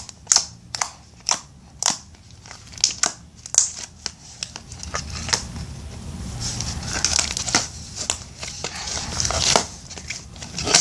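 Irregular crackling and crinkling clicks from handling things up close, many sharp snaps a second or so apart with bursts of crinkle in between.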